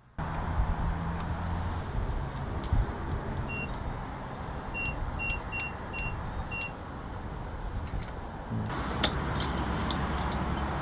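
Gas pump keypad giving six short, same-pitched beeps as buttons are pressed, over a steady hum of engines and traffic. Near the end a louder rushing noise with a few sharp clicks sets in as gasoline flows from the pump nozzle into the car's tank.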